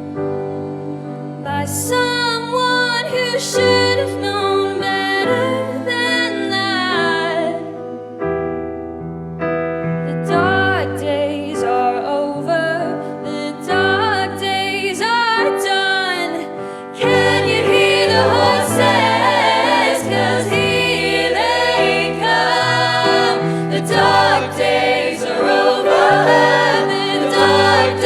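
Music: layered singing voices over sustained keyboard chords, swelling into a fuller, louder choir-like sound about seventeen seconds in.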